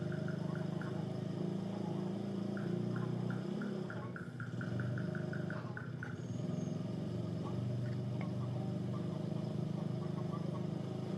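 A steady mechanical hum from a running motor, with bouts of rapid light ticking, about five a second, near the start and again from about two and a half to six seconds in.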